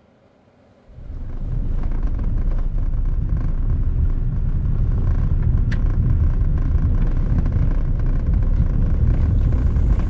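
Car driving along a dirt road, heard from inside the cabin: a steady low rumble of road and engine noise that starts about a second in after near silence, with one faint click near the middle.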